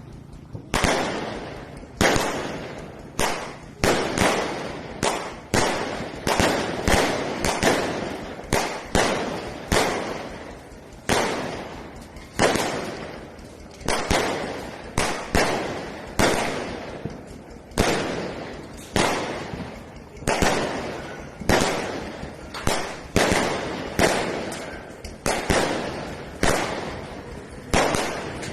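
Fireworks shells bursting in quick succession, about one to two loud bangs a second, each trailing off in a short echo.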